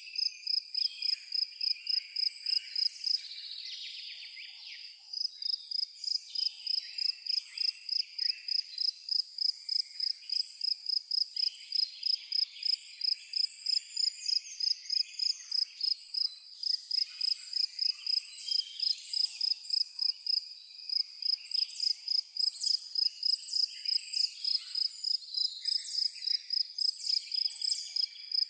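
A cricket chirping in a steady, even rhythm of about three to four high chirps a second. It pauses for a couple of seconds about three seconds in, then carries on. Birds chirp and twitter over it.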